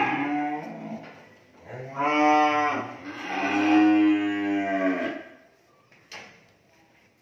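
Cattle mooing: the end of one moo at the start, then two long moos, the second lasting about two seconds. A single sharp click near the end.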